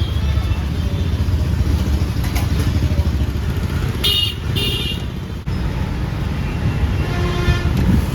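Busy road traffic with engines running steadily, and two short vehicle horn toots about four seconds in.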